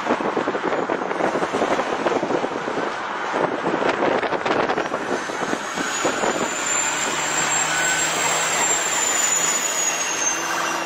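Helicopter running: a steady rushing drone of engine and rotor noise, with a thin high whine that rises and then falls in the second half.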